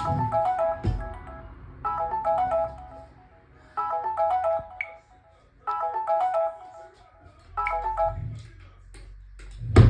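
Alarm tone of an old Samsung phone ringing: a short melody of clear electronic notes repeating about every two seconds. A low thump comes about a second in, and a loud knock near the end.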